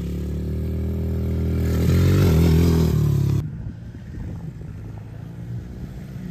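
Dirt bike engine running as the bike passes close by, growing louder to a peak about halfway through, with its pitch dropping slightly. It then cuts off suddenly to a fainter, more distant dirt bike engine.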